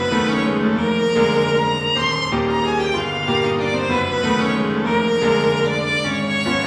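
Instrumental background music: a slow melody of held notes that change every second or two.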